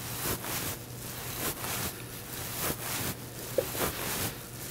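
Hand work at a machine vise on a steel block: a string of short, irregular scraping and rustling strokes over a faint steady hum.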